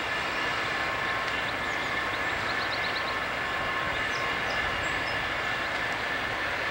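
Steady running of idling six-axle diesel-electric locomotives, a low even rumble with a faint steady hum. A short run of faint high chirps sounds about two and a half seconds in.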